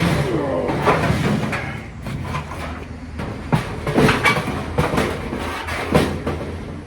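Handling clatter from a dryer being worked on: irregular knocks and clanks of metal parts, with a short squeak under a second in and a low hum behind.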